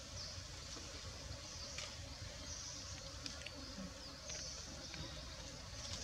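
Outdoor forest ambience: high-pitched insect buzzing that comes in repeated pulses of about a second, over a low rumble, with a few faint clicks.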